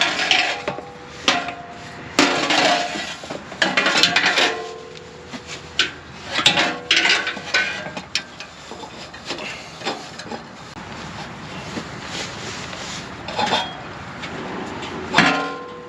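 Aftermarket GGB Trail muffler being worked into place on a Polaris RZR XP 1000's exhaust hangers: irregular metal clanks, knocks and scraping, a few of the knocks ringing briefly.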